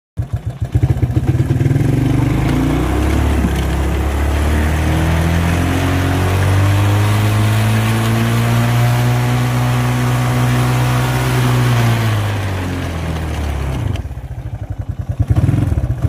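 Engine of a 25-year-old Suzuki ATV plowing snow: idling at first, revving up about two seconds in and held at steady higher revs for about ten seconds, then dropping back to idle near the end.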